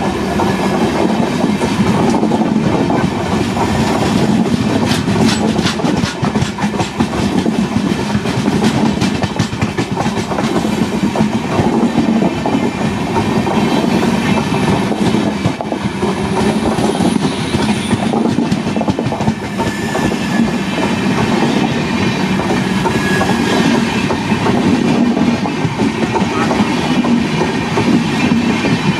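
Passenger train coaches passing close by at speed: a steady rumble and rush of wheels on rail, with the clickety-clack of bogies over rail joints, most rapid between about four and ten seconds in.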